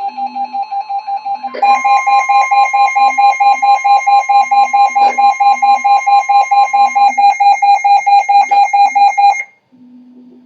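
Emergency alert tone beeping rapidly and loudly, the attention signal ahead of a severe thunderstorm warning. It gets louder and adds a second, higher tone about one and a half seconds in, then cuts off suddenly near the end.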